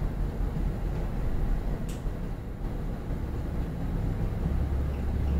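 Low, steady background rumble with a single faint click about two seconds in; the rumble grows louder near the end.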